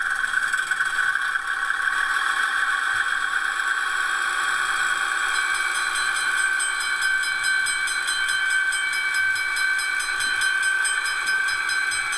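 An H0 model O&K diesel locomotive's ESU LokSound 5 FX sound decoder plays a diesel engine sound through its small speaker. The sound is steady and thin, with high tones and hiss, and a fast, even ticking joins in about five seconds in as the locomotive runs.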